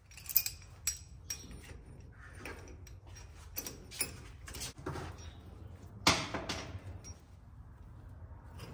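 Metal tools clinking and clanking as a puller is set up on the pinion flange of a Ford 9.75-inch rear differential: a string of sharp, irregular clicks, with the loudest clank about six seconds in.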